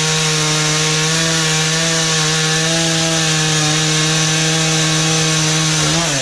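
Chainsaw engine running steadily at high speed while cutting wood. Near the end its note drops as the throttle is let off.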